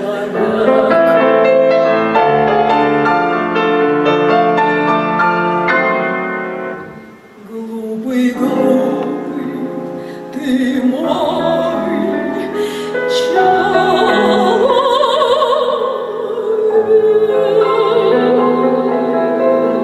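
A female operatic voice singing with vibrato to grand piano accompaniment. The piano carries a passage of chords for the first few seconds. The sound dips briefly about seven seconds in, then the voice comes back in over the piano.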